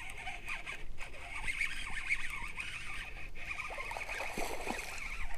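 Baitcasting reel being cranked while fighting a hooked largemouth bass: a steady, rasping whir that pauses briefly twice.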